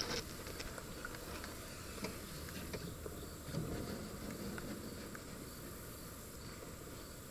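Quiet outdoor ambience: faint insects chirping, with scattered light clicks and taps.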